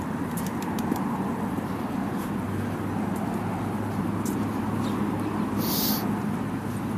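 Steady street traffic noise with a low engine hum, and a short hiss about six seconds in.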